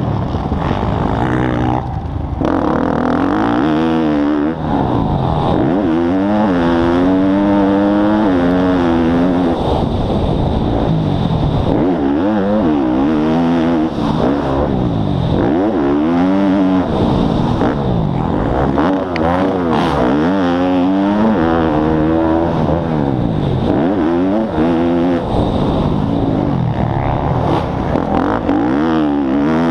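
Motocross dirt bike engine heard close up from on the bike, revving up and falling back over and over as the rider accelerates, shifts and backs off round the track.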